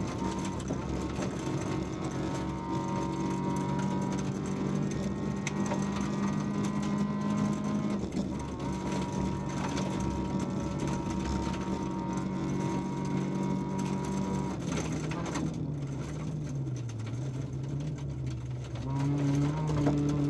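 VW Polo 1.4 16V rally car's four-cylinder engine running hard, heard from inside the cabin over steady road noise. The revs hold steady for most of the time, then drop and waver about three quarters of the way through before climbing again near the end.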